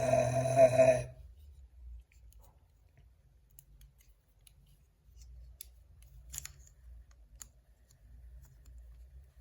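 A hummed 'mm' note ends about a second in. After it come a few faint, scattered clicks of small plastic LEGO pieces being handled.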